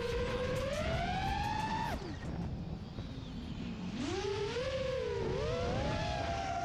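FPV quadcopter motors whining, the pitch rising with throttle, dropping away about two seconds in, then spooling back up about four seconds in with several motors' tones running close together over a low rush of noise.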